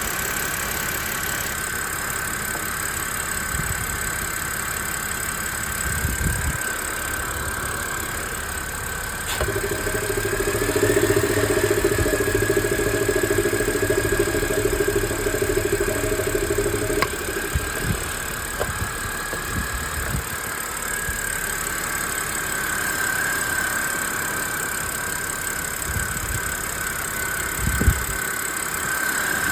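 Car engine idling roughly with a steady high-pitched whine of unknown source running through it. For several seconds in the middle a louder, lower droning joins in, and there is a single knock near the end.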